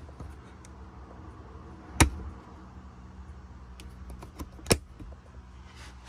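Two sharp plastic clicks, about two and a half seconds apart, with a few lighter ticks just before the second, as a hand works the plastic cover of a child-seat top-tether anchor on a rear seat back. A low steady hum runs underneath.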